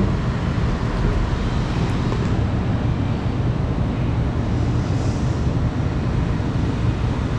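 Steady low rumble with a lighter hiss over it, even throughout, with no distinct events.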